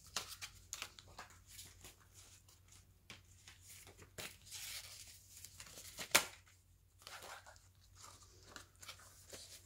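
Hands handling a leather traveler's notebook and its elastic cords: faint scattered rustles and light clicks, with one sharp snap about six seconds in.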